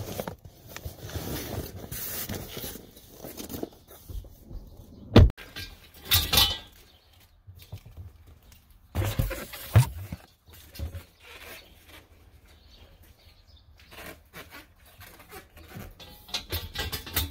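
Handling noise as balloon-arch frame pieces and balloons are loaded into a vehicle's cargo area: scattered knocks and thumps with rustling between, the sharpest knock about five seconds in and more around six and nine to ten seconds.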